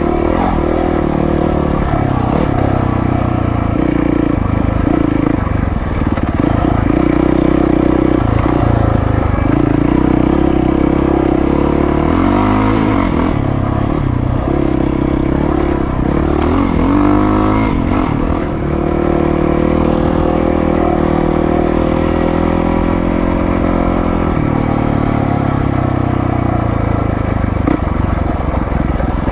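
A 450 cc four-stroke dirt bike's engine running steadily while riding. Its pitch dips and climbs again twice around the middle, as the throttle or gear changes.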